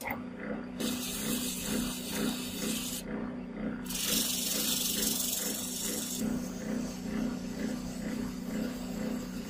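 Lathe running with a steady hum that pulses a few times a second, while sandpaper is held against a spinning brass-and-resin disc: a loud hiss of sanding about a second in for two seconds, then again from about four seconds in for two seconds, lighter after that.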